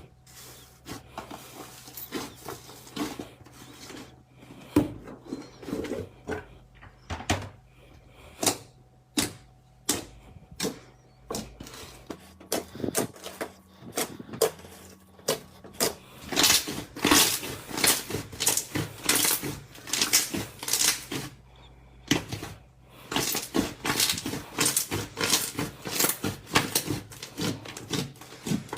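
Slime being squeezed and worked by hand, giving quick sticky clicks and crackling pops, thicker and louder in the second half.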